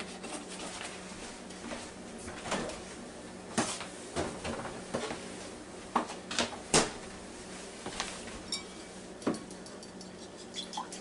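Scattered, irregular clinks and knocks of kitchenware being handled on a counter, with a fork clinking in a ceramic bowl near the end.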